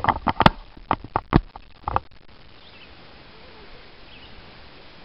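A quick, irregular run of sharp knocks and taps for about two seconds, then a faint steady background with a few faint high chirps.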